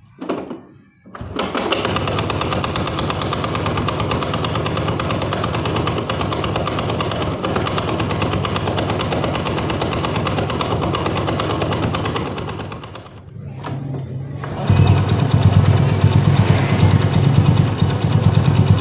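Honda Astrea Grand single-cylinder four-stroke engine idling with a harsh, fast clattering knock ('klotok klotok'). The cause is a loose magneto rotor nut, with a bolt likely left inside the magneto cover. After a short break about 13 seconds in, the repaired engine idles smoothly with a steady low beat.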